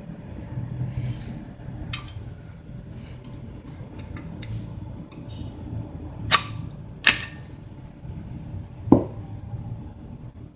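Sharp metal clicks and a duller knock as the butane canister is unlocked and pulled from a KOVAR portable cassette gas stove and set down: two loud clicks about six and seven seconds in, a knock near nine seconds, with a steady low hum underneath.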